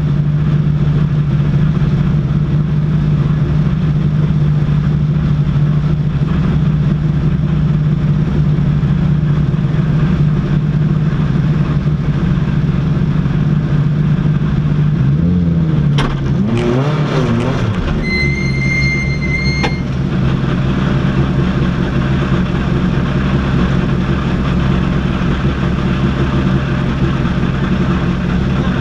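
Citroën rally car's engine idling steadily. Its note wavers briefly about halfway through, followed by a sharp click and a steady high-pitched electronic beep lasting about two seconds.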